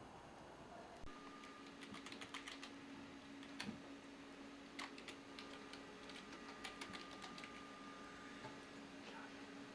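Faint, irregular clicking of typing on a computer keyboard, over a steady low hum that starts about a second in.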